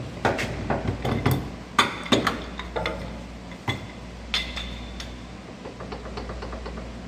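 Torque wrench tightening the pinion nut on a Dana 30 axle toward 200 ft-lb: a run of clicks and several sharp, ringing metallic clicks in the first few seconds, then clinks of the wrench and socket being handled. It goes quieter after about five seconds.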